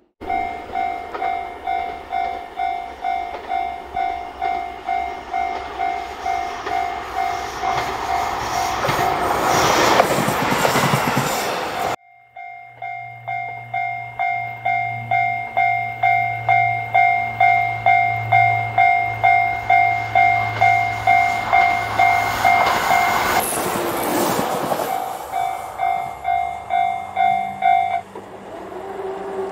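Railway level-crossing alarm bell ringing about twice a second while a diesel train passes, its noise peaking about ten seconds in. The sound cuts off suddenly. The alarm then rings again over a low engine drone as another train approaches and goes by around twenty-four seconds in.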